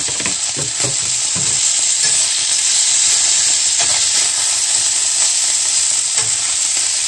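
Hot frying pan sizzling steadily as butternut squash noodles are added to cooked chicken and stirred. A few sharp knocks and scrapes of the utensil against the pan come in the first second or so, and once each around four and six seconds in.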